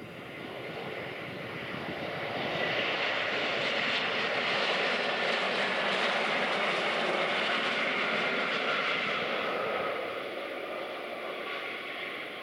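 Airbus A321-200 airliner's jet engines running on the landing rollout, spoilers up: a loud roar that builds over the first few seconds as the airliner passes close, then eases off, with a faint whine that drops in pitch as it moves away.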